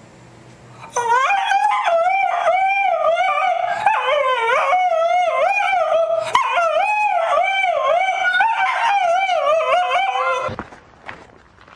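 A dog howling, a long run of wavering yowls that slide up and down in pitch, starting about a second in and stopping shortly before the end.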